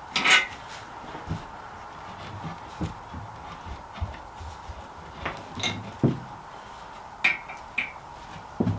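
Hand tools and metal engine parts clinking and knocking now and then during a straight-six engine teardown, with a sharp clank just after the start and a few more toward the end.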